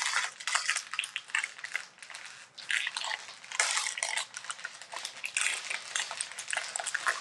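Trading-card pack foil wrappers crinkling and tearing as they are ripped open by hand: a run of irregular, sharp crackles.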